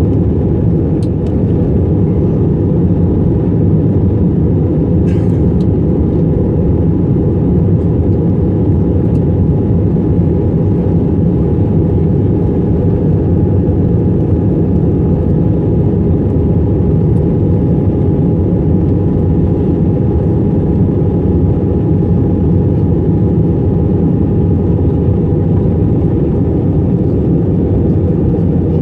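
Steady cabin roar of an Airbus A321 airliner in flight, from jet engines and airflow, heard from a seat over the wing during the approach to land. The noise is deep and even, with a faint steady whine held under it.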